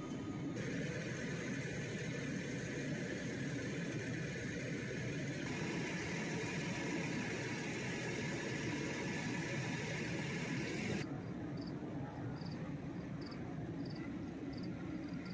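Steady low engine rumble, like a diesel idling, with a hiss over it for most of the time that cuts off abruptly about 11 seconds in. After that, faint high chirps repeat about two to three times a second, like a cricket.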